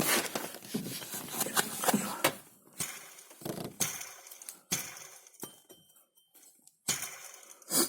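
Accessory-belt tensioner roller on a Volkswagen Polo sedan engine being turned by hand with the belt off: its bearing rustles, amid irregular metallic clicks and clinks. The rustle is the sign of worn roller bearings that need replacing.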